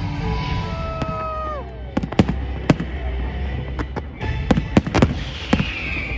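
Aerial fireworks going off in a display: a rapid run of sharp cracks and bangs from about two seconds in, over a steady low rumble.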